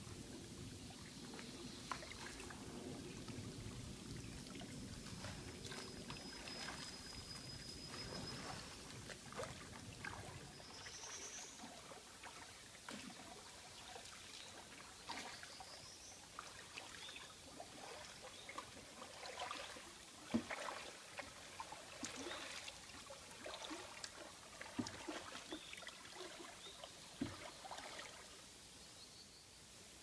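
Shallow river water running and trickling, with a steady low rush for the first several seconds, then scattered small splashes and clicks.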